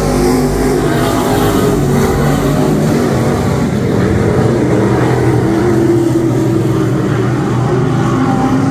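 Several dirt-track stock car engines running together as the field laps the oval, their overlapping engine notes rising and falling.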